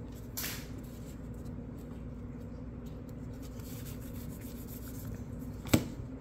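2022 Bowman baseball cards being flipped through by hand: soft sliding and rubbing of card stock over a steady low hum, with one sharp click near the end.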